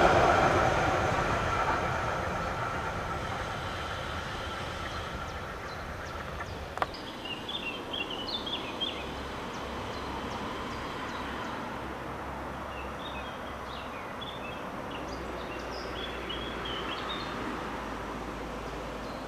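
Narrow-gauge steam train rolling away, its wheel clatter fading over the first few seconds into a steady outdoor hiss. Small birds then chirp in short bursts, a little before halfway and again later, with one sharp click about a third of the way in.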